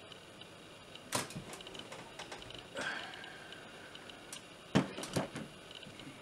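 A few scattered sharp clicks and knocks, about four in all, the one near the middle trailed by a short high tone, over a faint hiss.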